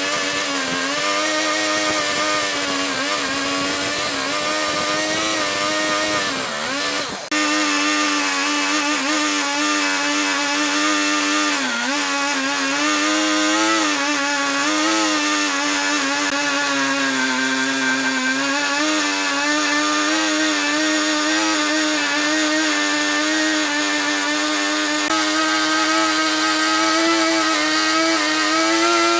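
Husqvarna two-stroke chainsaw running at high revs while cutting lengthwise along a log, its pitch sagging and recovering as the chain bites under load. The sound dips briefly and breaks off sharply about seven seconds in, then picks up again at full speed.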